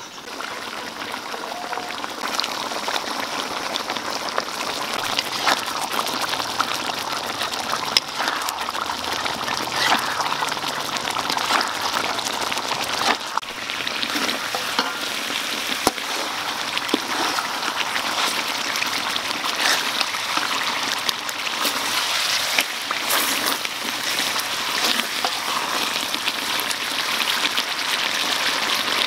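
Thick, reduced spice-paste sauce sizzling and bubbling around pork trotters in a steel wok, a steady dense crackle full of small pops.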